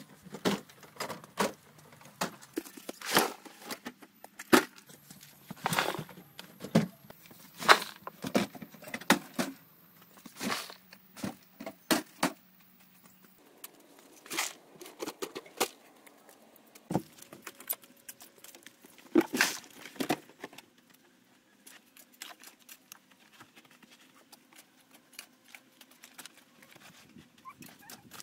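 Repeated gritty scrapes and knocks of a hand tool working dry soil and stones over a buried drainage pipe. They come close together for the first dozen seconds, grow sparser, and die away a few seconds before the end.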